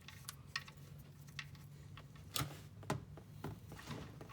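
A few faint, short clicks and taps, scattered and irregular, over a low steady hum.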